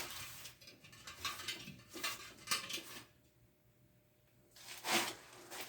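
Light metallic clinks and scrapes of small metal machine parts being handled, with a brief pause, then a louder scrape about a second before the end.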